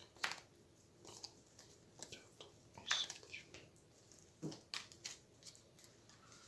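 Hero Realms game cards being handled and laid down on the table: irregular faint taps, flicks and rustles.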